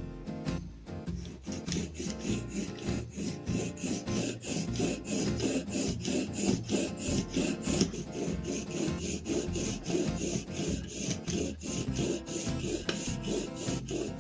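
Rapid, even back-and-forth rubbing strokes of hand work on a tool part, about three or four strokes a second, over background music.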